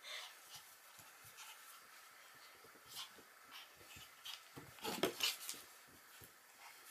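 Toy poodle puppy tugging at a rope toy: faint scuffling and rustling of paws and rope on a soft blanket, with a louder flurry of scrabbling about five seconds in.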